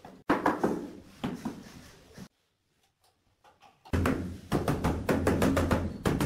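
Two dull knocks in the first couple of seconds. After a short silence, background music with a fast, even percussive beat starts about four seconds in.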